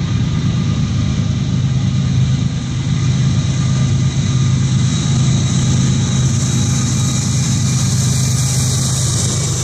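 Diesel locomotives of an approaching Norfolk Southern freight train, a steady low engine drone. High rail and wheel noise builds over the last few seconds as the lead units arrive.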